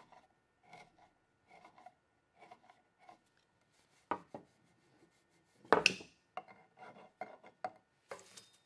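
Hand tools working dense osage orange wood: short, soft cutting and scraping strokes from a carving gouge, with a few sharp clicks and one louder knock about six seconds in. After the knock come quicker rasping strokes of a file.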